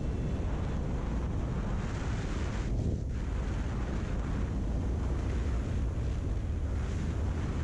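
Wind buffeting a motorcycle-mounted action camera's microphone at road speed: a steady, low rumbling rush that covers the bike's engine and tyre noise.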